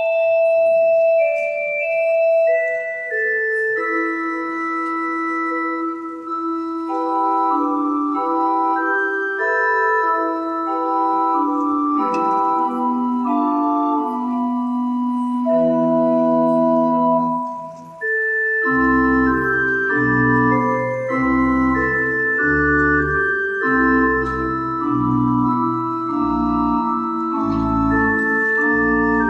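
Organ playing a slow instrumental piece of sustained chords under a melody. About two-thirds of the way through there is a brief break, and deep bass notes come in.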